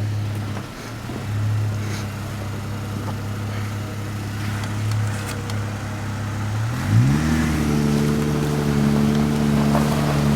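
A vehicle engine idling steadily, then about seven seconds in its revs rise and hold at a steady higher pitch.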